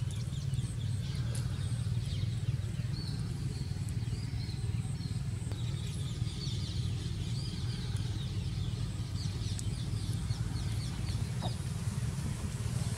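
Birds chirping, many short high chirps, over a steady low rumble.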